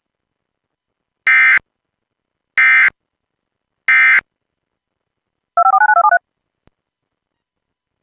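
Emergency Alert System end-of-message code: three short, buzzy digital data bursts a little over a second apart, marking the end of the alert. About five and a half seconds in, a brief warbling electronic tone follows.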